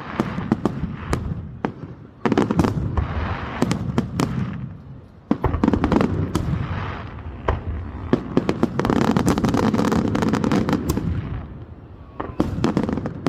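Fireworks display: rapid volleys of sharp bangs over dense crackling, coming in several waves with short lulls between.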